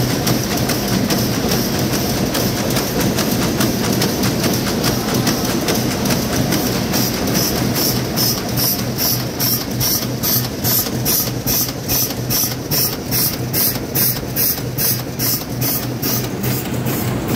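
Twin-lane tobacco-pouch-making machine running, with a steady hum and a regular cycling clack of about two and a half strokes a second that grows sharper from about seven seconds in.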